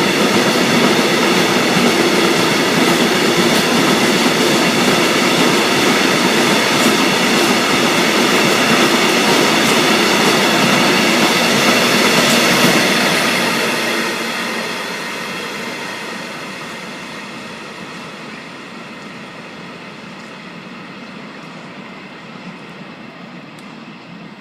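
Freight train wagons rolling past with a dense rumble of wheels on rail and a few steady high ringing tones. Loud for about the first 13 seconds, then fading steadily as the end of the train passes and moves away.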